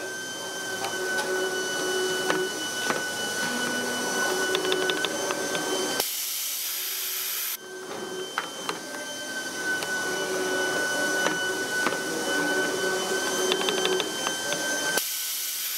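Simco CNC-620RW spring forming machine running its forming cycle: a steady machine whine with a high tone, with clicks and quick runs of clicks as the tools bend the wire. About six seconds in, the whine gives way to an even hiss for a second or two, then the same cycle starts again.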